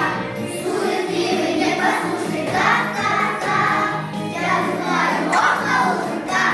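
A children's choir singing a song over instrumental accompaniment.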